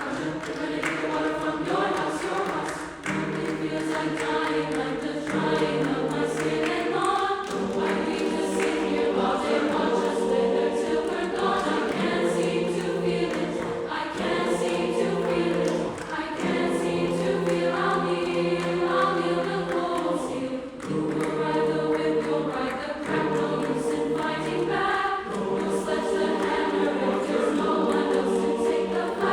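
Mixed SATB choir singing in divided parts, with sustained chords moving in phrases a few seconds long.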